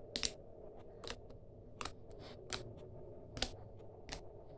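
Pink-purple slime being poked and pressed with fingertips on a cutting board, giving sharp little clicking pops about every three-quarters of a second: the slime is clicky.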